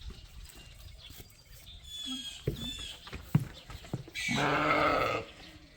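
A sheep bleats once, a single rough baa about a second long, a little past the middle. A few short knocks come just before it.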